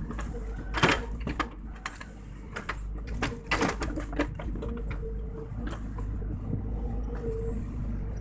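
Sany SY55C mini excavator's diesel engine running steadily with a constant whine, and a cluster of sharp clanks and knocks about a second in and again around three to four seconds in as the boom and bucket work the mud.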